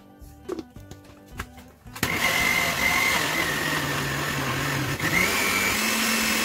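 Countertop blender switched on about two seconds in, its motor running loud and steady as it blends oats, milk, bananas and egg into pancake batter. Its whine sags a little, then steps up to a higher pitch about five seconds in. A couple of clicks come before it starts.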